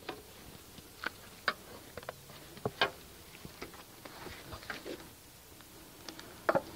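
Scattered light knocks and clicks of a wooden beehive's outer cover being lifted off and handled.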